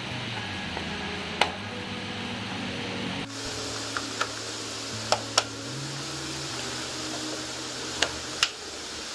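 Steady fan-like hiss with about seven sharp clicks scattered through, some in close pairs: hands pressing plastic clips and a rubber body plug into place on a car's bare rear quarter panel.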